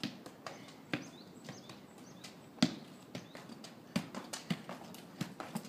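Soccer ball being kicked, juggled and bouncing on an asphalt street: separate sharp taps, the loudest about two and a half seconds in, coming quicker near the end.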